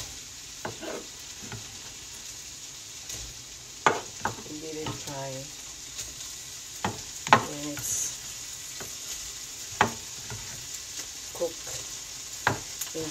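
Diced ham and onions sizzling steadily in butter in a wok. Half a dozen sharp clacks of a spatula against the pan as the ham is pushed in and stirred.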